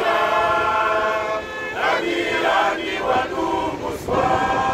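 A group of voices singing a chant-like song together, holding long notes with short breaks between phrases.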